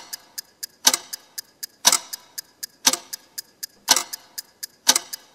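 Clock ticking, used as an awkward-silence sound effect: a louder tick about once a second with fainter ticks between, about four a second.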